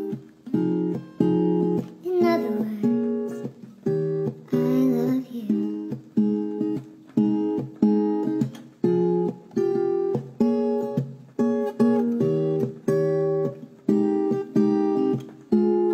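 Background music: an acoustic guitar strummed in a steady rhythm, about one chord every two-thirds of a second, each chord ringing and fading before the next.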